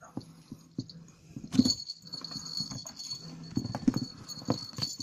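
A kitten scrambling and pouncing on rustling fabric sheets and a cardboard box while batting at a string toy: a string of light thumps, scratches and scuffles, the loudest knock about a second and a half in. A steady high-pitched tone comes in at the same moment and carries on.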